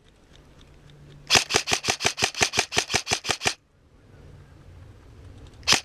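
Airsoft electric gun firing a full-auto burst of about seventeen shots, roughly eight a second, for two seconds, then two quick shots near the end.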